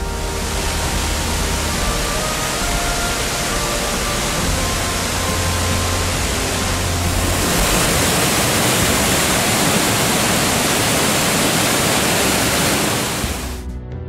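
Choshi Otaki waterfall on the Oirase stream pouring into its pool: a loud, steady rush of falling water. Soft background music plays under it for about the first half, and the water sound fades out just before the end.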